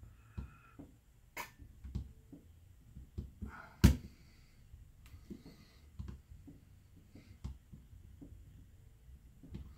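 Small screwdriver prying at the seam of a plastic smart-plug housing to release its snap clips: scattered small clicks and scrapes of plastic, with one loud sharp click about four seconds in.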